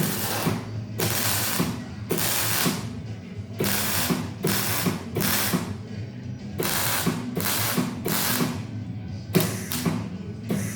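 Welding arc on steel box section struck in short crackling bursts, about one a second, as the seam is stitched in a run of short welds. Faint background music runs underneath.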